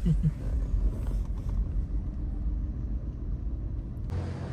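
Car's low, steady rumble, with the sound changing abruptly about four seconds in.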